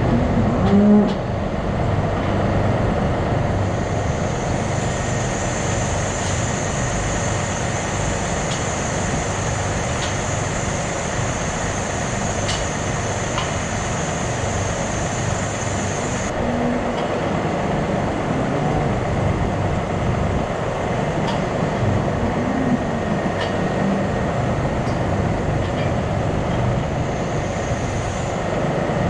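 Steady mechanical drone of a dairy barn's large ventilation fans, with a constant low hum, and a few faint clicks here and there.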